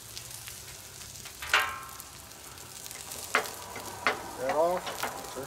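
Egg sizzling steadily on a hot Royal Gourmet 36-inch flat-top griddle. A loud sharp click with a short ring comes about a second and a half in, with a few softer clicks and a brief wavering pitched sound near the end.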